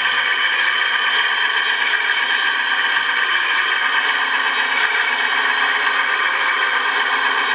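Radio-controlled model Scania truck running, a steady engine-like drone and whir that holds the same pitch and loudness throughout.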